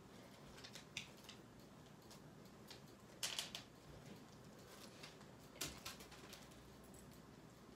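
Jelly cube slime being squeezed and worked by hand: faint scattered clicks and crackles, with a few louder crackling pops about three and a half and six seconds in.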